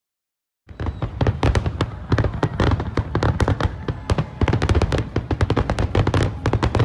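Fireworks going off: a dense, rapid string of sharp crackling bangs over deep low booms, cutting in suddenly from silence just under a second in.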